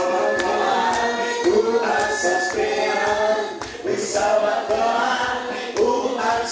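A choir singing together, with a steady beat under the voices.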